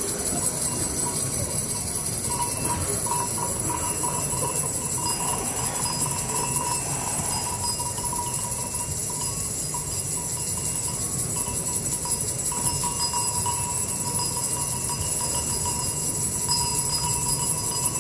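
Live experimental drone music from a solo performer's keyboard and electronics rig: a steady rumbling wash with a high, jingling, bell-like shimmer over it and a thin held tone that comes and goes.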